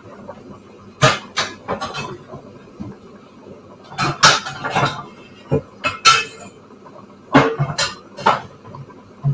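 Kitchen pots, pans and utensils clattering and knocking together in irregular bursts as someone rummages through a kitchen cupboard for a pasta strainer.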